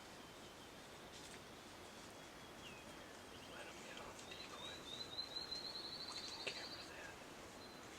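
A wild turkey gobbling: a fast rattling run of notes that swells from about four seconds in and stops sharply near the seven-second mark, over faint outdoor background.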